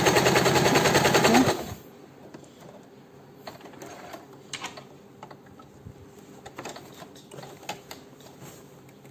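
Usha Janome Dream Stitch electric sewing machine running fast with a rapid even needle stroke, sewing a pattern-stitch sample; it stops abruptly about a second and a half in. A few light clicks and small handling sounds follow.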